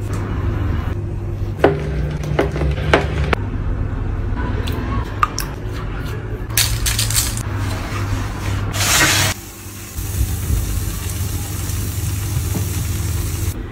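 Pastry being handled and brushed on a baking tray: a few sharp taps and clicks, two short brushing or rustling noises, then a steady hiss over a low hum.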